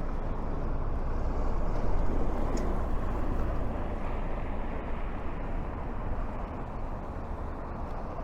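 Road traffic on a town street: a steady rumbling noise that swells about two seconds in and slowly eases off.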